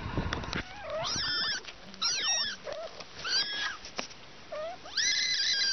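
Kittens mewing: about five short, high-pitched mews that rise and fall in pitch, roughly one a second, the last one longer.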